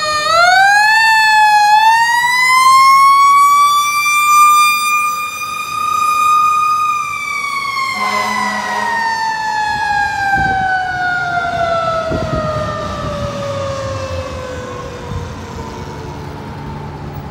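Fire truck siren wailing: its pitch climbs in steps over the first few seconds, holds high for a few seconds, then falls slowly and steadily through the rest.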